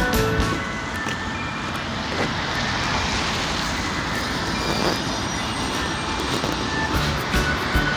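Background music breaks off about half a second in, leaving a steady rushing noise that lasts until the music comes back near the end.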